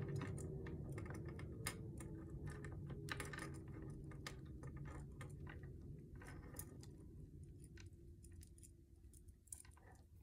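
Scattered light clicks and taps of wooden beads knocking against each other and the wooden desk as a cord is knotted by hand, over a low hum that fades away.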